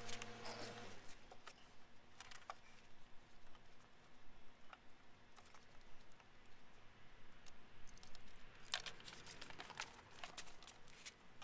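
Scattered light clicks and plastic rattles from handling a Mini Clubman taillight housing, with a denser run of clicks near the end. A low steady hum cuts off about a second in.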